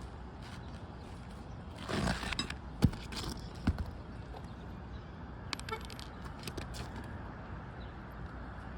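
Repair handling noises: a short scrape about two seconds in, then two sharp knocks a little under a second apart, and a few faint clicks later, over a steady low rumble.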